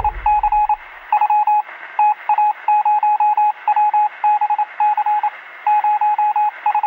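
Morse code beeping: a single steady tone keyed on and off in irregular short and long pulses, dots and dashes.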